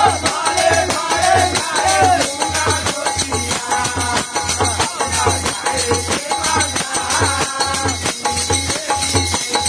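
A group of men sings a Holi folk song, with small brass hand cymbals (manjira) clashing rapidly and a low beat repeating about twice a second.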